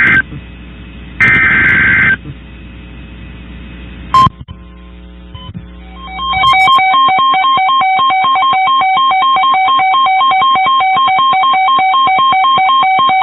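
Emergency Alert System signal: a harsh digital header burst about a second in, then from about six seconds a loud electronic alert tone pulsing rapidly, about four beats a second, over a faint low hum.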